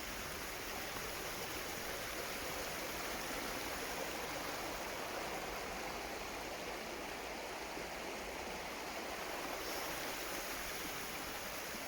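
Stream water flowing steadily, a continuous even rush.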